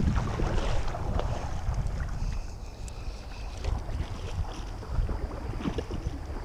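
River water sloshing and lapping around an action camera held at the surface, with wind rumbling on the microphone and scattered small splashes and knocks. Louder in the first second or two, then steadier.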